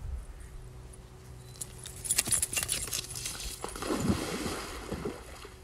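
Water splashing as a dog jumps into a swimming pool. A busy burst of splashes comes about two seconds in, then a lower sloshing that dies away.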